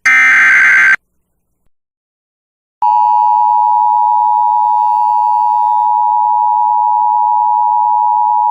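A one-second burst of EAS digital header data, a harsh warbling screech, then a short gap. About three seconds in, the Emergency Alert System attention signal starts: a loud, steady two-tone tone. It announces the severe thunderstorm warning that is about to be read.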